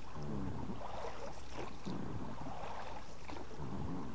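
Water lapping softly against the hull of a small boat sitting on calm water, with faint indistinct voices now and then.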